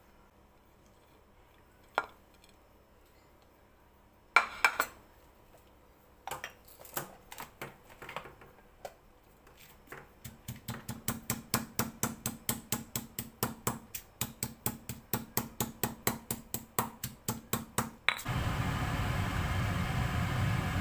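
Stone pestle pounding sliced aromatics to a fine paste in a stone mortar: a few scattered knocks, then steady rapid pounding at about four strokes a second. Near the end the pounding stops and a steady loud hum starts.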